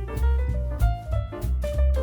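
Background jazz music with a walking bass line, drums and melodic instruments.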